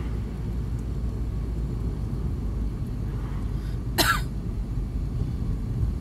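Steady low road and engine rumble inside a moving car's cabin, with one short cough about four seconds in.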